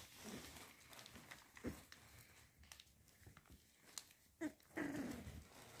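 American Staffordshire Terrier puppies play-fighting: several short, faint puppy calls, with a longer one near the end, over light rustling of fur and blankets.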